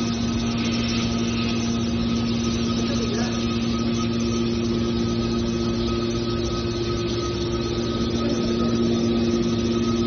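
Hydraulic power unit of a scrap metal baler running steadily while the rams move: a constant hum with a few held tones over machine noise.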